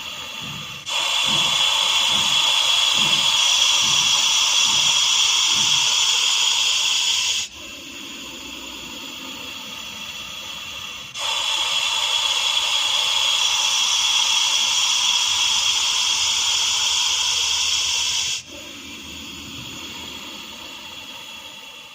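Russell's viper hissing: two long, loud hisses of about seven seconds each, with a quieter, lower hiss between them.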